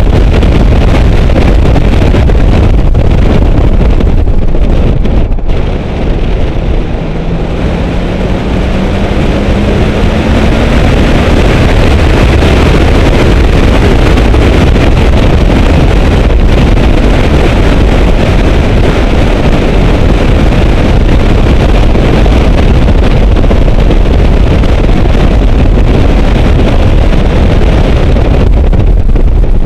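Heavy wind buffeting a camera mounted outside a car's window at track speed, with engine and road noise beneath it. About six seconds in the noise eases briefly as the car slows, then a rising engine note climbs as it accelerates again.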